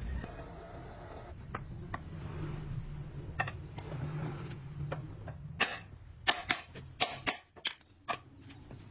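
Work on a truck's rear axle: scattered sharp clicks and knocks over a low steady hum, with a run of about seven loud knocks in the second half.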